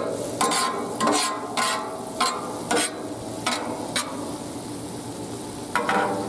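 Metal spatula scraping and chopping across a Blackstone griddle's steel cooktop, turning cauliflower rice in a quick run of strokes over the first four seconds, with one more scrape near the end. Underneath, the rice sizzles steadily as it fries in oil.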